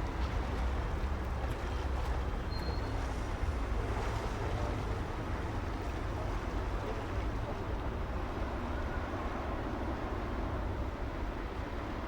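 Steady low rumble of city street traffic, a continuous wash of engine and tyre noise with no single event standing out.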